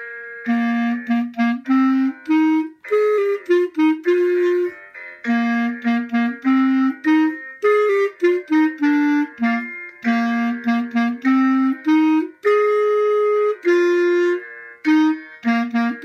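A beginner plays a melody on the clarinet, in short phrases of separate notes with brief pauses for breath between them.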